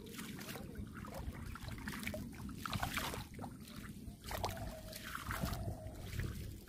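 Shallow rainwater on a flooded road sloshing and splashing around bare feet as someone walks through it, with irregular splashy steps over a low wash of water noise.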